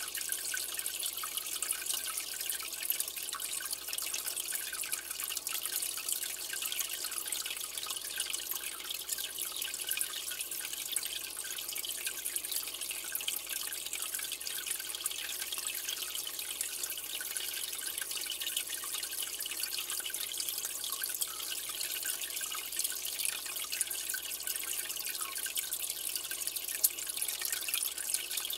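Aquarium water circulating: a steady trickle and splash of water, flecked with many tiny drips.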